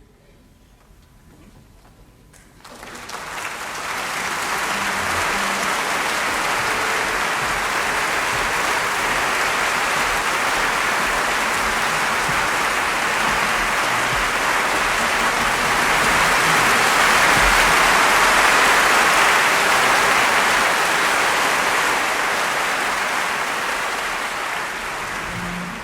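A large crowd applauding, a dense steady clapping that swells in about two and a half seconds in, grows a little louder past the middle, and begins to fade at the very end.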